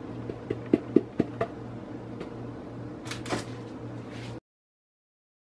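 About half a dozen light knocks in the first second and a half as mixing bowls are handled and set down on a kitchen counter, then a short scraping rustle about three seconds in, over a faint steady hum. The sound cuts to dead silence for the last second.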